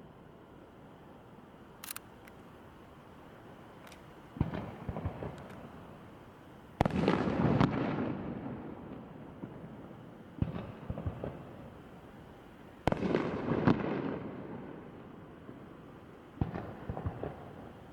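Aerial fireworks shells bursting in a string of four sudden booms a few seconds apart, each trailing off in a rumbling crackle. The second and third booms are the loudest. Fainter sharp pops come before them.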